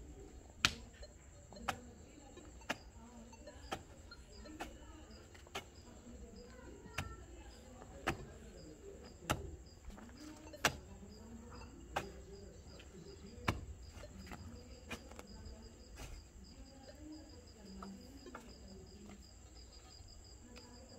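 Small pickaxe striking packed dirt, about one blow a second, the blows thinning out a few seconds before the end. Crickets chirp steadily behind it.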